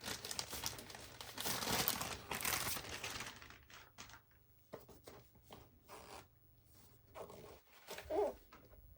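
Knife packaging being torn open and crinkled for about three seconds, followed by scattered rustles and light taps as it is handled, with a brief squeak near the end.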